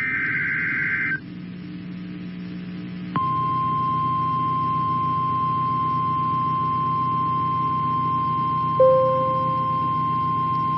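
Emergency Alert System broadcast tones: a short screeching burst of SAME digital header data, then after about two seconds a single steady high attention tone, the NOAA Weather Radio warning alarm that announces a new alert. A brief lower beep sounds near the end, over a low hum from the radio.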